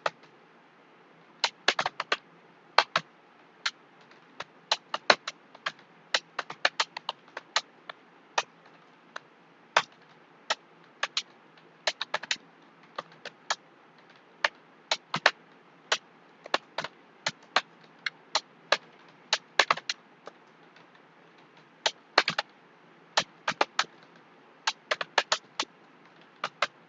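Computer keyboard keys clicking as someone types, in irregular runs of a few quick keystrokes with short pauses between.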